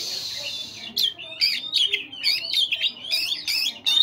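A hiss for about the first second, then an oriental magpie-robin sings a fast run of varied, high whistled and chattering notes.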